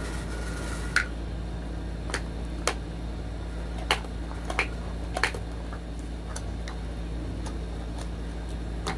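Small plastic toys being handled: about half a dozen sharp, irregular clicks and taps as a plastic egg shell and a cup lid are fitted together and set down, over a steady low background hum.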